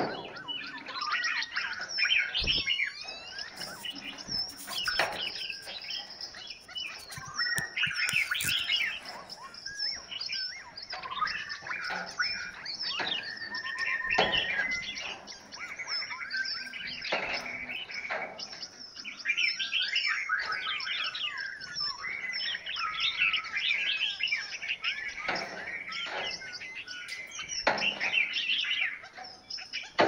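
Several aviary songbirds singing and chirping at once, a dense, overlapping chorus of whistles, trills and chirps that never lets up.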